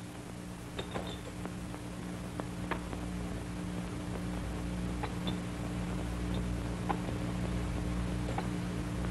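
A low steady hum that slowly grows louder, with a few faint, scattered clicks.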